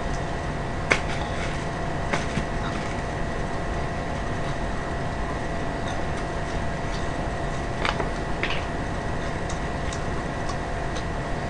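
Steady whirring background hum with a few light clicks.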